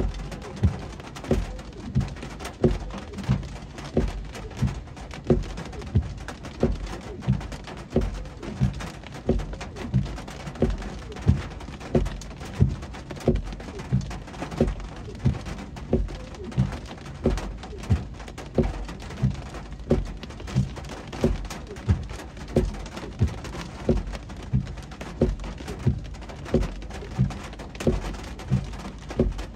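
Car windscreen wipers running fast, thudding at each stroke at a steady rhythm of about one and a half a second, over the hiss of heavy rain on the car.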